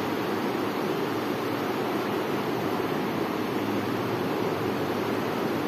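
A steady rushing noise, even and unbroken, with no distinct events in it.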